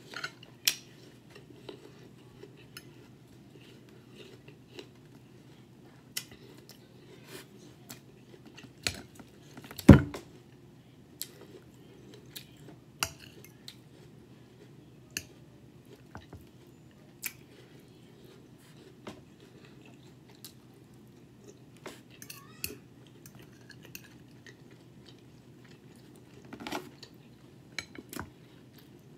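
A metal fork clinking and scraping against a plate with intermittent chewing during a meal, over a faint steady low hum. One much louder thump about ten seconds in.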